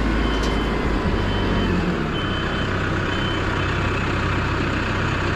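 A vehicle engine running steadily, with a reversing alarm beeping about once a second.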